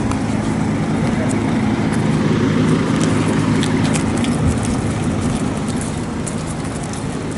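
Steady low hum of a motor vehicle's engine running close by, with traffic noise and a few light ticks over it.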